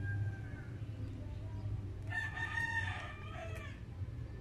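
A rooster crowing twice. The first crow trails off and falls in pitch within the first second. A second, longer crow comes about two seconds in. A steady low hum runs underneath.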